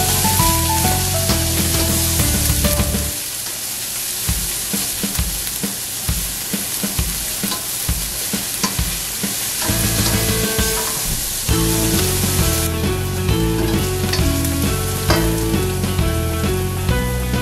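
Chopped onion and garlic sizzling in hot oil in a stainless steel pan, stirred with a slotted spoon that scrapes and clicks against the pan, with background music over it. The music is loud for the first three seconds, drops away, and returns about ten seconds in.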